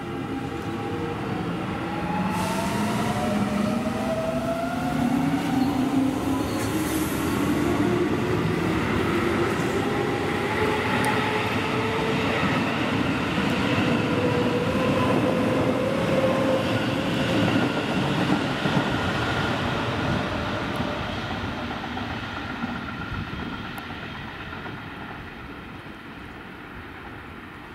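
Keio electric commuter train pulling away and accelerating: the whine of its traction motors climbs steadily in pitch over the rumble of the wheels on the rails, then fades as it draws away.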